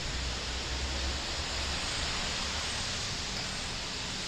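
Steady hiss of rain falling, with a low rumble underneath that is strongest in the first second or so.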